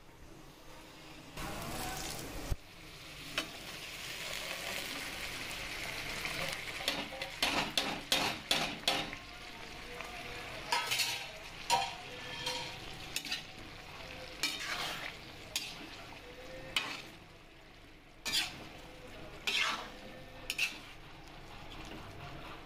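Perforated metal spoon scraping and clinking against an aluminium kadhai while stirring boiled black chickpeas and potatoes into frying masala. The masala sizzles steadily in the first half, and repeated sharp scrapes and knocks of the spoon on the pan follow.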